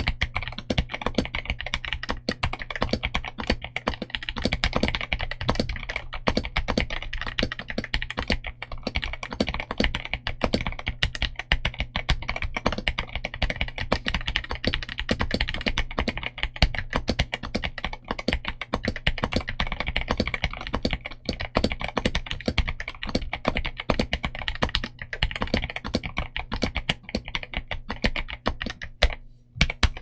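Continuous fast typing on a Gamakay TK75SE mechanical keyboard with Outemu Brown tactile switches and dye-sub PBT Cherry-profile keycaps: a dense clatter of keystrokes, briefly dropping off near the end.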